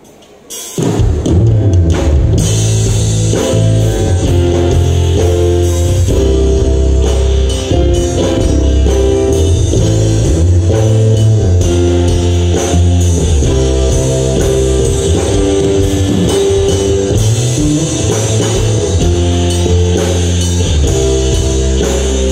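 Band music with drum kit, guitar and heavy bass, starting suddenly about a second in and then playing loudly and steadily.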